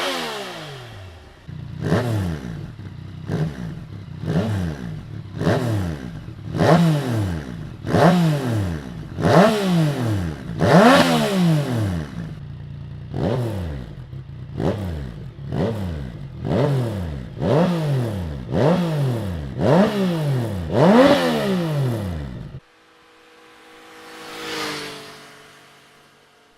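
Yamaha FZ-09's inline three-cylinder engine revved in quick throttle blips, about one a second, each rising sharply and falling back. It cuts off suddenly near the end, leaving a much quieter steady engine drone that swells once.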